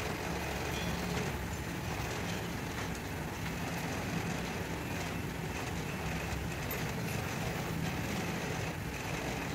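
Steady low hum of a truck engine idling.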